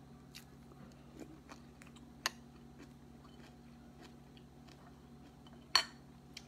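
Chewing and small mouth sounds of eating, with light clicks of a spoon and fork against bowl and plate; a louder click comes about two seconds in and the loudest near the end. A faint steady hum runs underneath.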